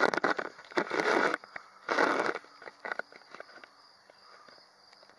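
Handling noise: three bursts of rustling and scraping with sharp clicks in the first two and a half seconds as the camera is shifted against a plastic chair, then faint, even, high-pitched insect chirping.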